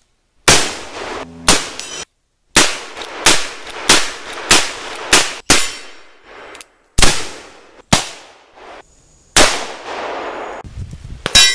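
Black powder cap-and-ball revolver shots fired one after another, about a dozen sharp reports each with a short echoing tail, with a metallic ring after the last ones.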